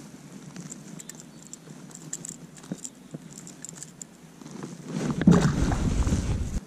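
Faint metallic clinks and ticks of a fishing lure's hooks as it is worked out of a crappie's mouth. About five seconds in, a louder rustling rumble of gloved hands and jacket sleeve right against the microphone that cuts off suddenly.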